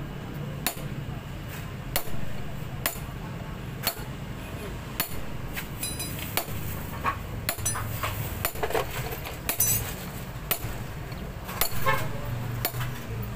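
Metal rod knocking and scraping inside a motorcycle's exhaust port, working loose a broken exhaust elbow stuck in the cylinder head: sharp metallic clinks, roughly one a second.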